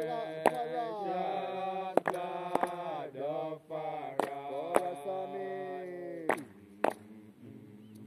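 Voices chanting in long, gliding held notes, a Rastafari Sabbath chant, with sharp knocks falling in pairs about every second and a half. The chanting stops about six seconds in, and a couple more knocks follow.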